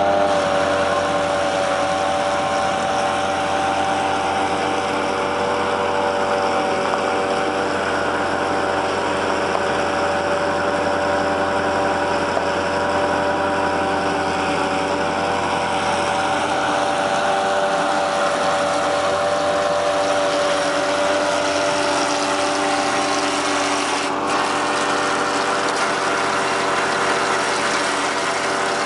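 Engine idling steadily with a constant whining hum over it, the power for a hydraulic cable winch.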